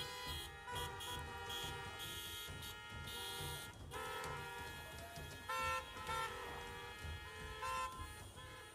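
Many car horns honking at once, held tones at several different pitches overlapping, with a few short toots breaking in from about halfway through.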